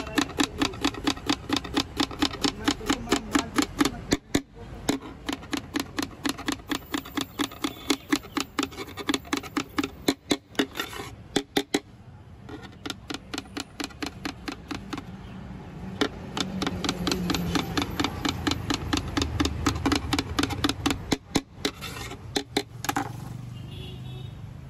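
Knife chopping vegetables finely on a cutting board: rapid, even chops at about five a second, with a few short breaks, stopping near the end.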